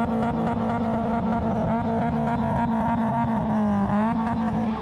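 Car engine revved up and held at high revs, its pitch steady and dipping briefly near the end.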